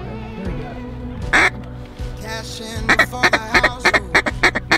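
Mallard-style quacking over background music: one loud drawn-out quack about a second and a half in, then, from about three seconds in, a rapid run of short quacks at about six a second.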